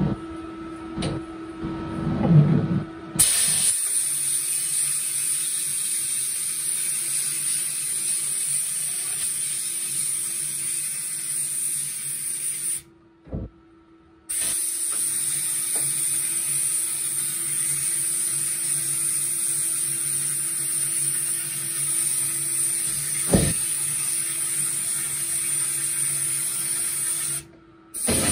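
Air-driven spray nozzle of a compressor-fed parts-washing cabinet hissing as it blasts washing solution onto a greasy part. A few seconds of handling knocks come first. Then the hiss runs steady, breaks off for about a second and a half near the middle, and starts again until just before the end.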